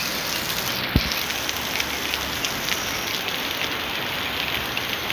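Heavy rain pouring onto a waterlogged street: a steady hiss dotted with many small drop clicks. A single low thump about a second in.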